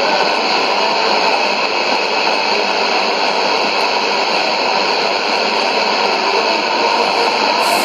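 Steady shortwave static and hiss from a Sony ICF-2001D receiver tuned to a weak, fading AM signal on 15560 kHz, with the broadcast's voice lost in the noise.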